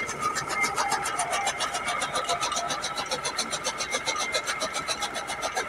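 Tractor-driven toka (chaff cutter) running off the tractor's PTO shaft and chopping green fodder as it is fed in: a fast, even chopping rhythm over the steady running of the tractor engine.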